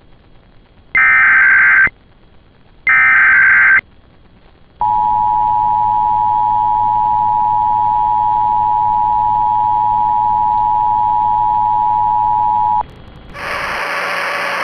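Emergency Alert System tones heralding an Amber Alert broadcast. First come two screeching digital header bursts, each about a second long. Then the steady two-tone attention signal holds for about eight seconds and cuts off abruptly, giving way to a short burst of hissy noise near the end.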